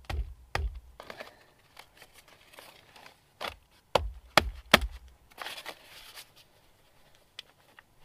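Hands slapping and patting flatbread dough flat on aluminium foil over a log: sharp pats, several at the start and a few more about halfway, with foil and a plastic bag crinkling in between.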